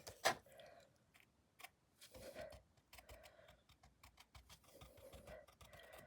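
Faint small ticks and taps of a paintbrush being dabbed to shed excess oil paint, with one sharp click just after the start.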